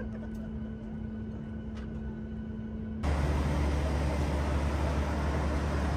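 Steady vehicle-interior hum with one held tone and a few faint clicks. About three seconds in it cuts abruptly to a louder, deeper rumble with hiss over it.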